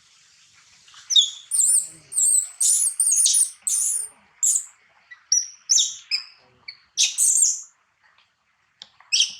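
A baby monkey giving a run of short, very high-pitched squeaky calls, about a dozen in quick succession with a brief pause before a last pair near the end.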